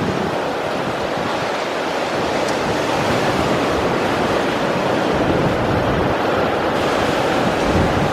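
Ocean waves washing ashore in a steady, continuous rush of surf.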